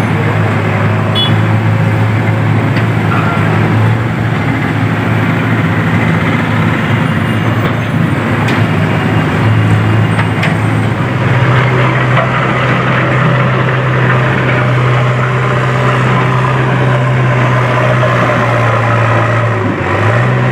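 Heavy diesel engine of construction machinery running steadily, its pitch stepping up a little about halfway through.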